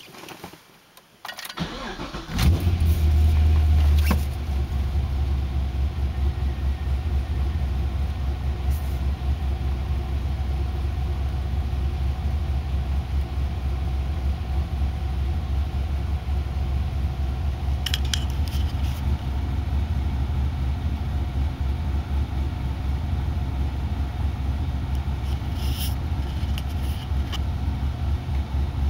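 2006 Pontiac GTO's 6.0-litre LS2 V8 starting about two seconds in, running higher for a couple of seconds, then settling into a steady idle. It carries the noise the owner asks about, which he suspects is piston slap or something more serious.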